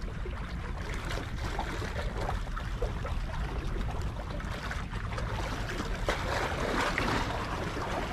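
Small waves lapping and splashing against shoreline rocks, with wind rumbling on the microphone.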